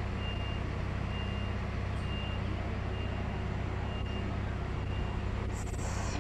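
Railway platform ambience: a steady low hum with a faint, short high beep repeating about once a second. A short burst of hiss comes near the end.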